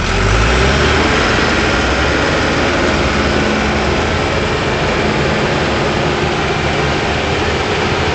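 Bulldozer's diesel engine running steadily, with a step up in loudness just after the start.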